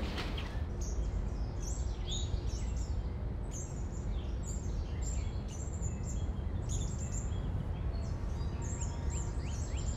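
Many birds chirping, a scatter of short high calls and quick falling notes, over a steady low outdoor rumble.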